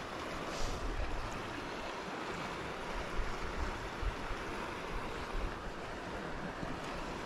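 Steady rush of the South Platte River's flowing water over rocks, with wind buffeting the microphone.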